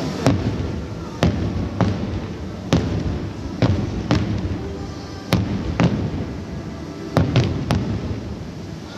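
Fireworks show: about ten sharp bangs of bursting shells at irregular intervals, with music playing underneath.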